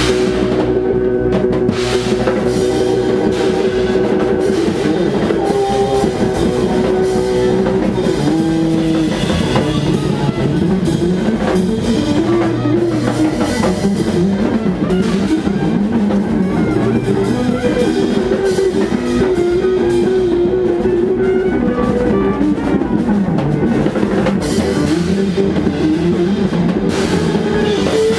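Jazz band playing: a busy drum kit under electric guitar and upright bass, with a sustained melody line over them.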